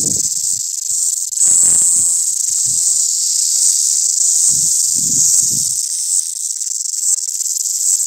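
Many cicadas on a shrub making a loud, continuous, high-pitched buzzing drone. Brief low rumbles on the microphone come and go a couple of times.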